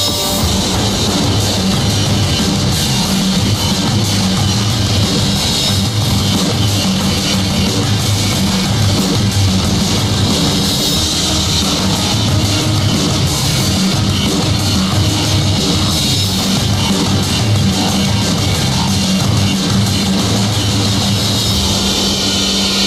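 Loud rock music with a drum kit keeping a steady beat.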